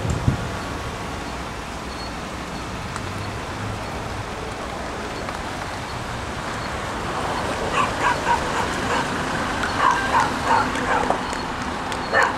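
A dog barking, a quick run of short barks starting past halfway and one more near the end, over the steady low noise of a slow-moving car.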